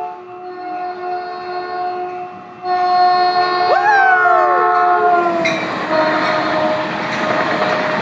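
Caltrain passenger locomotive's multi-chime air horn sounding a steady chord: softer at first, then a loud long blast that cuts off at about five and a half seconds. The train then rushes past with a loud rumbling roar of wheels on rail.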